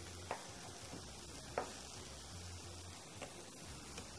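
Chef's knife striking a wooden cutting board while chopping a garlic clove: a few sparse, sharp knocks, the first two the loudest.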